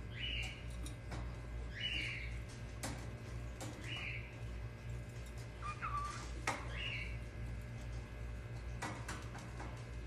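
Lutino cockatiel giving short chirping calls, five spaced out over the stretch, one of them lower in pitch about six seconds in, with a few sharp clicks in between. A steady low hum runs underneath.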